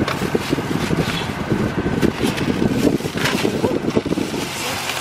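Thin plastic carry-out bag rustling and crinkling close to the microphone while foam takeout boxes are handled inside it, with irregular light crackles and knocks.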